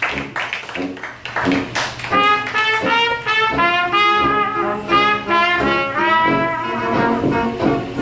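Live traditional jazz band playing: trumpet, trombone and clarinet over strummed chords and tuba. The first two seconds are mostly short rhythmic chords, then the horns come in together about two seconds in with held, overlapping notes.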